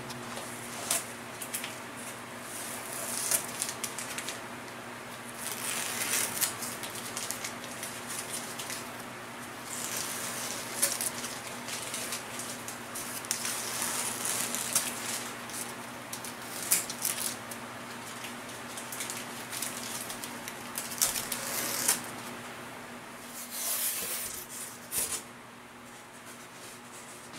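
Double-sided tape being handled: its blue backing peeled off and crumpled by hand, giving irregular scratchy rustles and small clicks. A steady low hum runs underneath.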